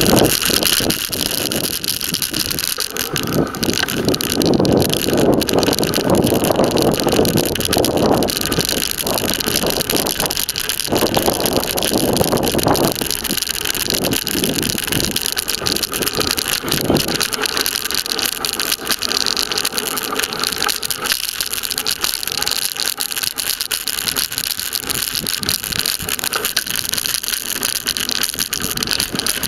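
Bicycle on the move, heard from a camera clipped to the bike: wind buffeting the microphone, tyre noise and the rattle of the mount and frame, gustier in the first half and steadier later.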